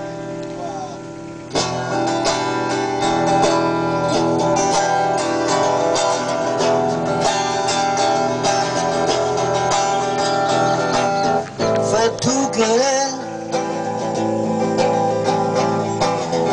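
Guitar strummed in steady chords, with a sharp louder strum about a second and a half in, playing a song's introduction before the vocal comes in.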